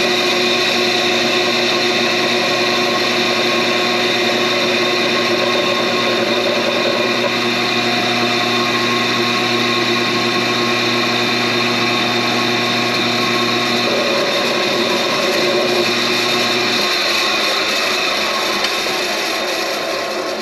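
Bench drill press running steadily with a motor hum and whine while its 0.090-inch bit drills an oiling hole through the exhaust bridge of an aluminium Wiseco piston. The lower notes of the hum shift a little about 14 and 17 seconds in.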